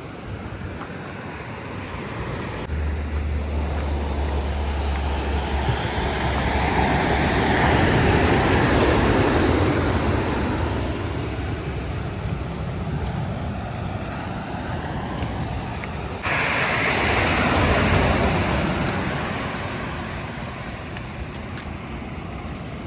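Ocean surf washing onto the beach, swelling and fading twice, over a steady low rumble of wind on the microphone.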